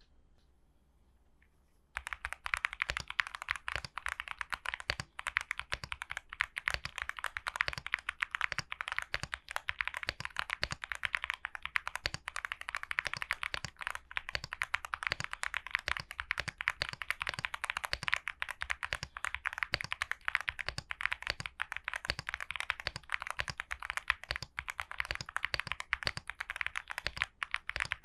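Fast, continuous typing on a MYNK 80X mechanical keyboard with WS Brown tactile switches: a dense stream of key clicks that starts about two seconds in.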